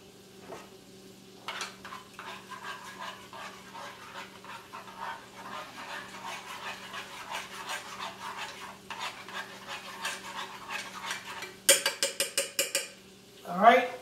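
A utensil stirring soup and water in a metal saucepan: a steady run of quick scrapes and clicks against the pan. Near the end come about a second of louder, faster strokes, then a short rising vocal sound.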